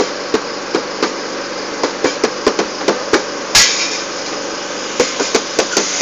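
Improvised drum set of household containers and a metal pan struck with sticks: irregular knocks at an uneven beat, with one louder, brighter metallic clash about three and a half seconds in.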